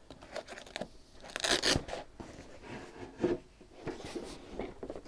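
Rustling and brief rasping of a padded fabric wing bag being handled and opened, its flap lifted and folded back, with a few short tearing-like strokes about one and a half and three seconds in.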